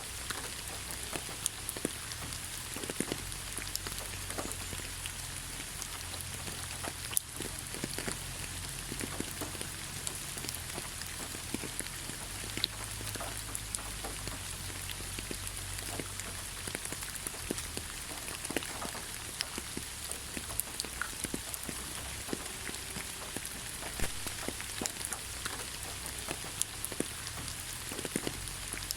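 Steady rain falling, with many individual drops ticking sharply over an even hiss.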